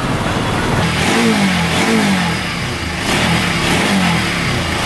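An engine revving up and down over and over, its pitch rising and falling about once a second, over steady background noise.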